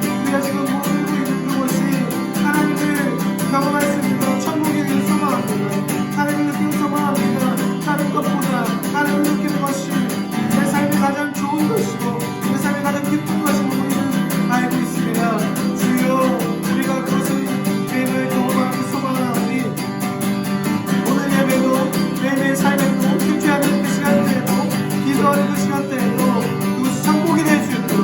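Acoustic guitar strumming slow worship chords, with a faint voice over it.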